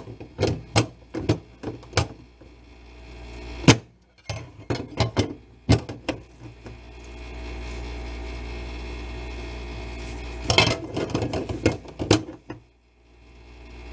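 Sink drain strainer parts and tools knocking and clinking against the metal sink as the strainer is held in place and its nut is worked on from below: irregular clusters of sharp clicks and knocks, with a pause in the middle, over a steady low hum.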